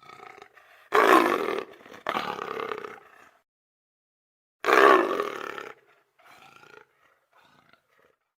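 Big-cat roar sound effects: three loud, rough roars, the last starting about halfway through, followed by quieter short growls near the end.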